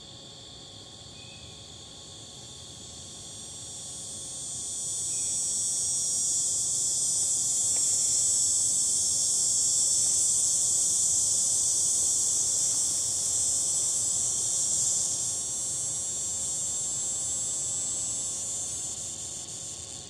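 A loud, high insect buzz swells up about three seconds in, holds steady, then fades and stops near the end. Under it runs a steady high insect trill.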